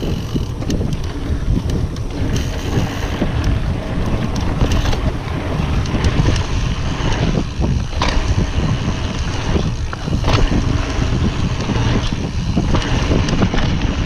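Mountain bike riding fast down a dirt trail: wind rushing over the microphone with the rumble of tyres on dirt, broken by frequent clicks and knocks as the bike rattles over bumps.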